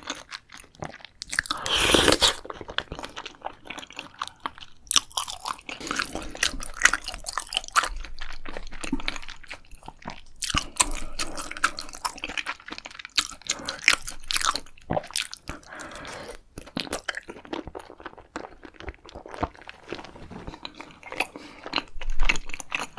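Close-miked eating: a person biting and chewing crunchy food, with a dense run of irregular crackles and clicks and a louder burst of crunching about two seconds in.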